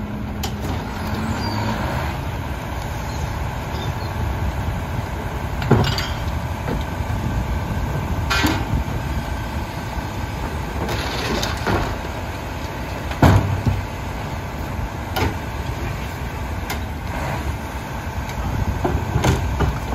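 Rear-loader garbage truck's engine running steadily while carts are tipped and bags thrown into the hopper, giving sharp knocks and bangs every couple of seconds; the loudest bang comes about thirteen seconds in.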